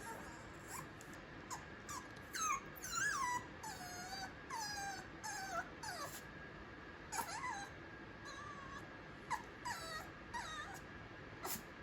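Black mame shiba puppy whining: a string of high-pitched whimpers, most sliding down in pitch, some short and some drawn out, repeated on and off.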